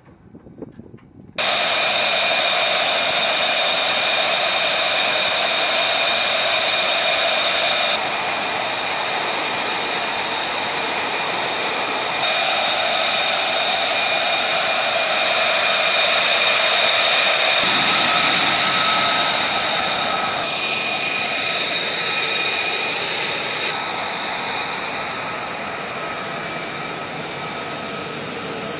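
F-35A Lightning II's Pratt & Whitney F135 turbofan running on the ground: a loud, steady high-pitched whine over a rush of noise. It starts abruptly about a second and a half in, and its level steps up and down a few times.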